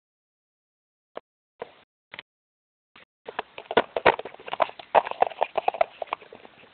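Sharp clicks and knocks: a few single ones spaced out at first, then about three seconds in a fast, irregular run of many clicks and taps.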